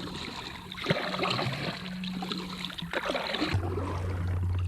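Water trickling and lapping against a kayak hull, with small ticks and drips. A steady low hum starts about three and a half seconds in.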